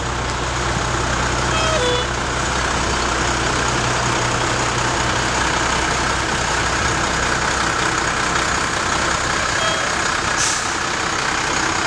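Fire engine's diesel engine running as the pumper rolls slowly past up close; its low engine hum fades as it goes by. A short air hiss comes near the end.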